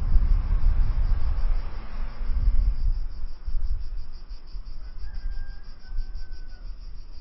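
Insects chirping in a steady, fast, high pulse over a low rumble that is loudest in the first three seconds and then fades. Near the end come two thin, held whistle-like tones.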